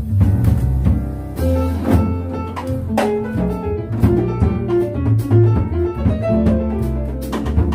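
Small jazz group playing live: plucked upright double bass to the fore, with piano and a drum kit's cymbal and drum strokes.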